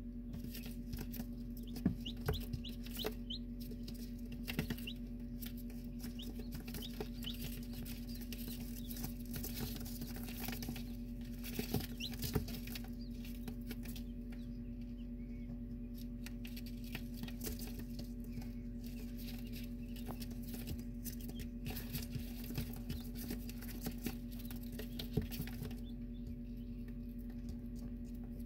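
Newly hatched quail and chicken chicks: short high peeps now and then, mostly in the first few seconds, and little feet scratching and pattering on paper. A steady low hum runs underneath.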